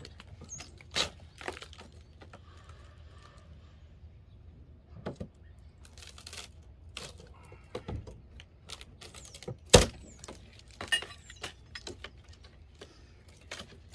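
Irregular clicks, knocks and clatter of hand tools and loose wood and nails during demolition work on an old wall, with one sharp, loud knock near ten seconds in.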